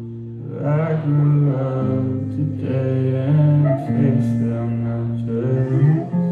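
Live band music: a male voice singing over guitar and a steady held low note.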